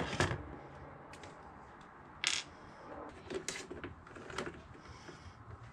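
Scattered small clicks and taps of wires, terminal connectors and hand tools being handled while wiring a 12 V outlet's ground wire, with one sharper click about two seconds in.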